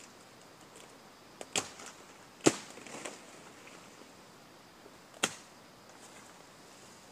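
Machete blade chopping through brush and wood under coconut palms: a handful of separate sharp whacks, the loudest about two and a half seconds in.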